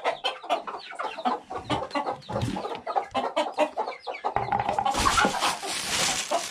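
A flock of native chickens clucking, a quick run of short clucks. About five seconds in, a loud crinkly rustle of a plastic bag being handled over a bucket joins the clucking.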